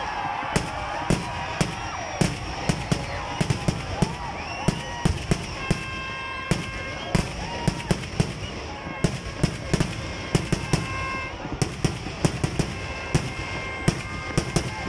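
Vedikettu temple fireworks: black-powder (karimarunnu) firecrackers going off in a rapid, irregular string of sharp bangs, several a second, with no let-up.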